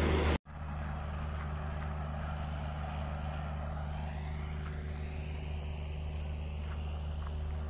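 Steady hum of a vehicle's engine and road noise, heard from inside the moving vehicle, after a brief cut about half a second in.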